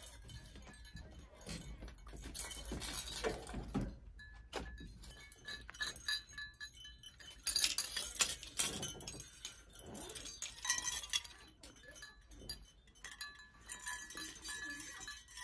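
Mother-of-pearl shell discs on a handmade hanging mobile clinking against each other: light, irregular clinks and tinkling, on and off.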